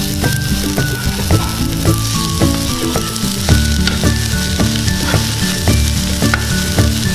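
Chopped onion, bell peppers and green beans sizzling as they land on a hot electric indoor grill sprayed with cooking spray, with a knife scraping and pushing them across the plate. Background music plays underneath.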